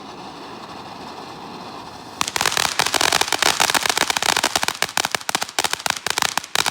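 A low hiss, then about two seconds in a string of firecrackers goes off, with rapid irregular loud pops that keep going.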